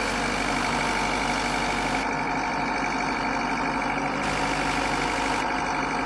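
Vehicle engine idling steadily, with a steady high tone running over it.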